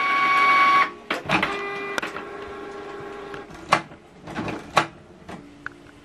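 Canon Pixma MG3650 inkjet printer's motors whining as its mechanism works through a job. A high whine stops abruptly about a second in, a clack follows, then a lower whine runs for about two seconds, and a few separate clicks and clunks come after. The owner puts this working to the freshly installed ink cartridges circulating ink through the system.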